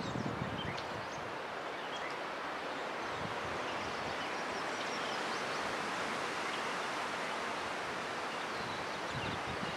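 Steady outdoor rushing noise with faint, scattered high chirps of barn swallows twittering overhead.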